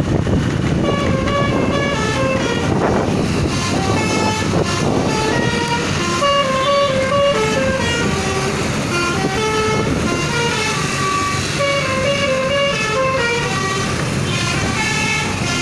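Indonesian 'telolet' bus horn playing a fast melody of short stepped notes, starting about a second in and going on throughout, over the steady low rumble of the vehicle's engine and the road.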